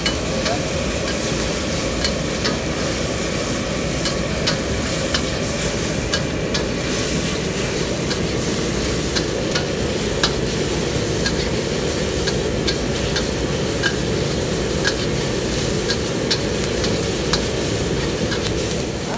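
Metal ladle stirring and scraping in a steel wok, with repeated sharp clicks as it knocks the pan, while fried onions and a paste sizzle in hot oil. A steady low rush from the gas wok burner runs underneath.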